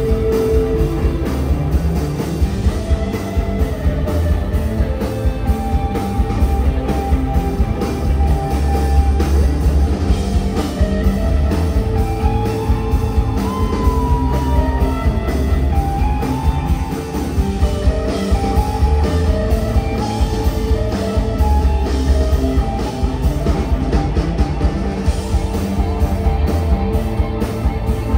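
Live rock band playing loud, with several electric guitars over drums.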